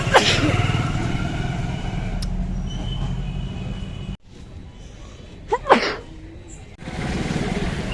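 Two short sneezes, one just after the start and a louder one about six seconds in, over a steady low rumble of road traffic.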